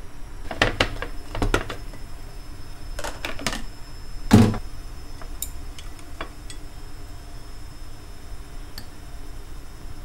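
A few clicks and knocks from objects being handled, in small clusters, with the loudest a single knock about four seconds in, then a few faint ticks.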